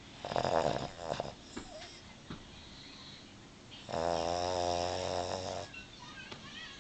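Boston Terrier snoring in her sleep: a short rattly snore near the start, then a longer, steady-pitched snore about four seconds in that lasts nearly two seconds.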